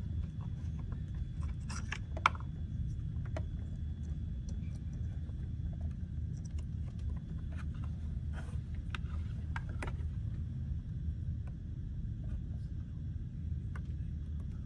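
Small clicks and rustles of wires and plastic connectors being handled inside a mower's electronics housing, sharpest about two seconds in, over a steady low hum.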